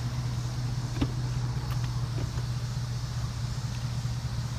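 Chevrolet Avalanche's V8 engine idling steadily, with a single sharp click about a second in.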